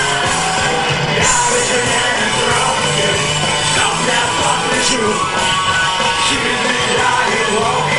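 Live punk rock music: a band on electric guitars, bass and drums playing a loud, steady instrumental passage with no lead vocal lyrics.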